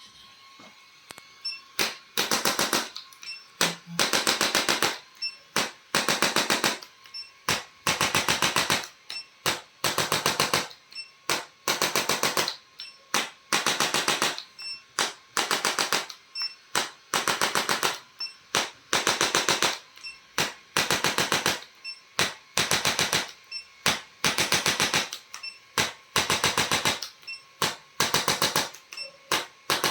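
Rapid mechanical clicking in many short bursts, each under a second long, separated by brief pauses. It starts about two seconds in.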